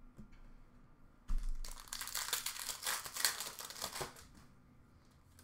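Plastic-foil wrapper of a hockey card pack (2011-12 Panini Rookie Anthology) being torn open and crinkled, starting about a second in and lasting about three seconds, with a few faint clicks of handling before it.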